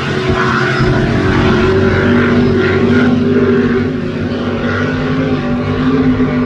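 Offshore racing powerboat engines running hard at speed, a loud steady drone whose pitch steps up slightly about two seconds in and holds.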